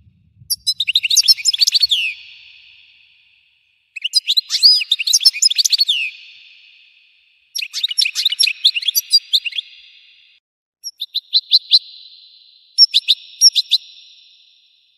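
European goldfinch singing: five phrases of quick, twittering chirps and trills, each lasting one to three seconds, with short pauses between them.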